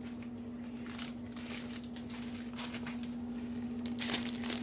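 Plastic noodle packet crinkling as it is picked up and handled, in irregular rustles with the loudest near the end. A steady low hum runs underneath.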